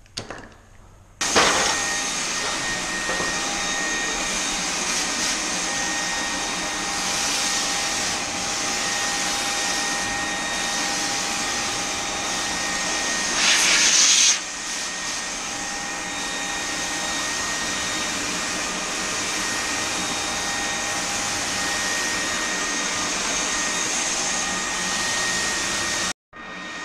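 Paint spray gun on an air hose running steadily as it sprays primer onto cabinets, starting about a second in. It surges louder for about a second near the middle and cuts off suddenly just before the end.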